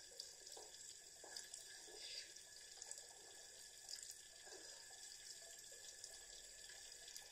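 Faint water running from a tap into a washbasin, with a few small splashes as someone washes their face at the sink.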